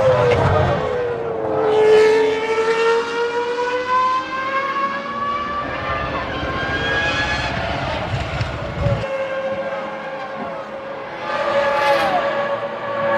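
Formula One V10 engines at high revs: one car's note dips, then climbs steadily as it accelerates through a gear. Another car passes about twelve seconds in, its pitch falling as it goes by.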